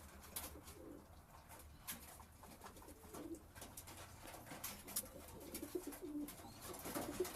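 Domestic pigeons cooing softly a few times, with scattered light clicks and taps among them.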